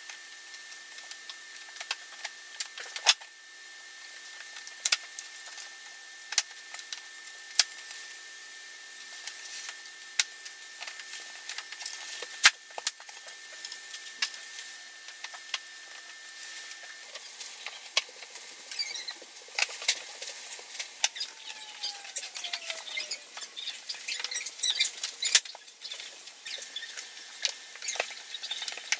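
Vinyl click-lock planks being handled and fitted by hand on a subfloor: scattered sharp clicks and taps, with small scraping and rattling sounds that grow busier over the last ten seconds.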